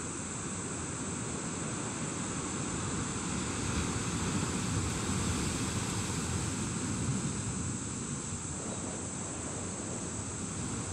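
Surf washing against shoreline rocks, a steady rush of water with wind blowing on the microphone, a little louder around the middle.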